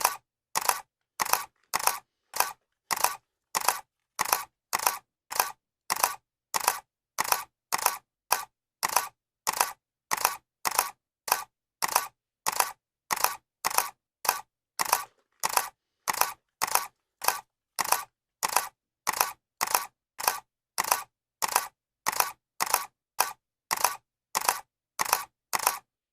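Camera shutter clicking over and over in a steady, even rhythm, a little under two sharp clicks a second.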